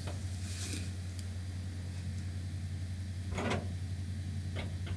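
A steady low hum with a few faint metallic taps and clicks from a hand wrench working a seatbelt-mount bolt in a bare steel truck floor.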